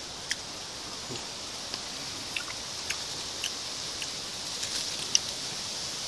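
Forest ambience: a steady high-pitched insect drone, with scattered light clicks and rustles of leaves brushing close by, the sharpest click about five seconds in.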